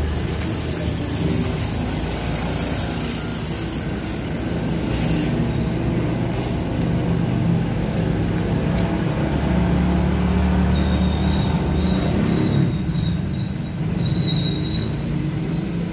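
A steady, fairly loud engine-like rumble, as of a motor running nearby.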